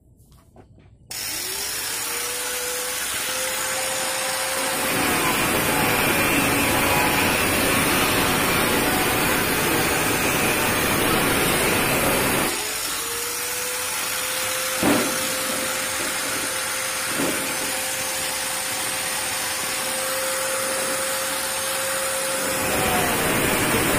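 Angle grinder switched on about a second in, its whine rising as the disc spins up, then grinding into a steel plate to cut a groove for bending it. About halfway through it runs free again at a steady whine, with a couple of short knocks, and bites into the metal again near the end.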